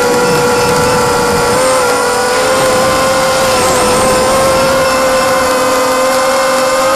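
Brushless motors (DYS BE1806) spinning 5045 propellers on a small FPV racing quadcopter, heard from the onboard camera in flight: a loud, steady whine that dips briefly in pitch about a second and a half in as the throttle changes.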